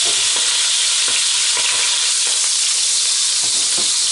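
Hot clarified butter (Butterschmalz) and meat juices sizzling steadily in a roasting pot where beef has just been seared, with a few light knocks.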